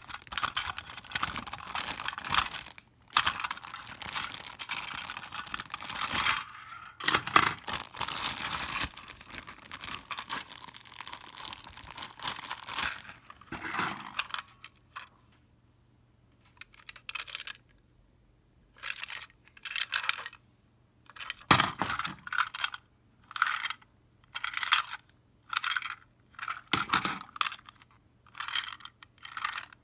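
Toy train packaging being handled and opened: continuous rustling and tearing for the first half, then short separate rattles and clicks of handled plastic parts.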